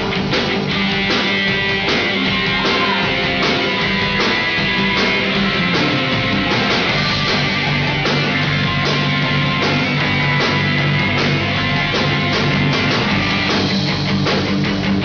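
A rock band playing live: electric guitars over a drum kit keeping a steady beat, with held and bent guitar notes.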